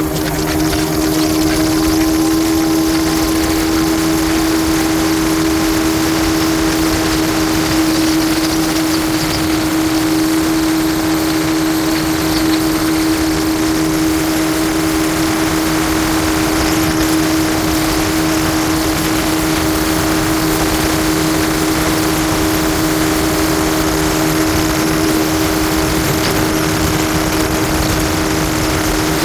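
Jet ski engine running at a steady speed, a constant drone with no change in pitch, over a steady rushing noise.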